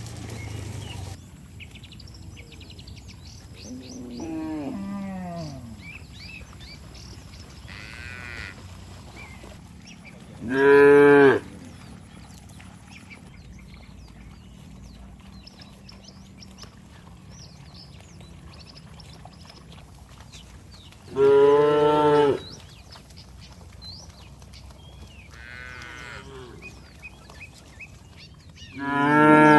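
Cattle mooing: two loud moos, each about a second long, with a third beginning near the end, and fainter falling calls in between.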